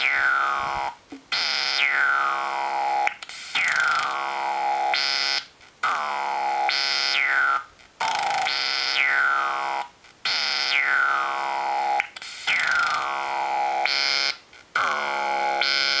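Homemade synthesizer built from a modified digital bird-call kit, with an added comparator, active bandpass filter, decade-counter sequencer, LFO and home-made vactrols. It plays a gritty, noisy droning note that repeats about every two seconds. Each note has a sweep falling from high to low and a short break before the next.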